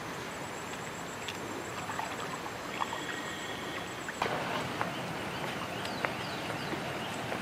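Water sloshing and splashing around a man wading chest-deep in a pond while he works a fishing net, over a steady outdoor hiss, with a few sharp clicks.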